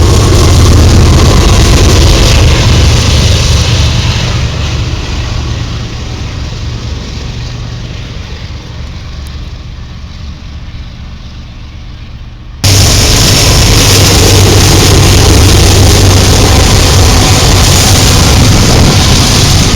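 Diesel locomotives working as distributed power units, engines running hard close by. The first one slowly fades as it moves away, then after an abrupt cut about two-thirds through, another is heard loud and steady.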